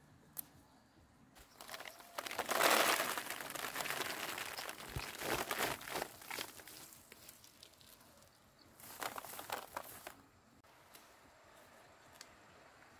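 Crinkling, rustling handling noise with scattered light clicks, in two spells: a longer, louder one from about two seconds in, and a shorter one around the nine-second mark.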